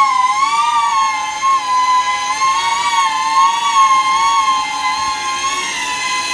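Five-inch FPV quadcopter's brushless motors and propellers whining in a low hover, several close pitches wavering as the throttle is worked. The motors are working hard under the weight of a 12,000 mAh battery.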